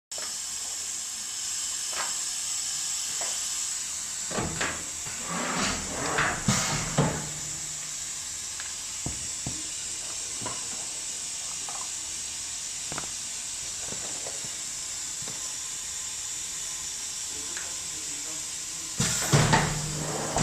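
Hot-plate tank welding machine at work: a steady high hiss with scattered clicks and clunks of moving parts, louder clattering between about four and seven seconds in, and another loud clatter with a low hum near the end.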